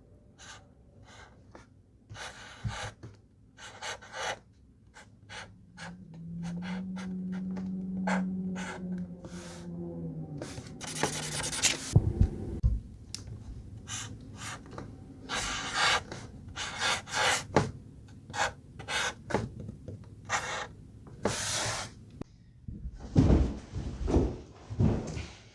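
A string of short clicks and taps, with a person humming one low note for a few seconds about a quarter of the way in and heavy breaths near the end.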